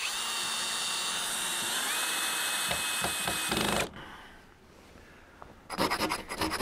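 Power drill-driver running steadily for about four seconds, its pitch rising slightly partway, as it drives a screw through a metal angle bracket into a wooden rafter, then stopping abruptly. From about six seconds, a quick run of short scraping rubs.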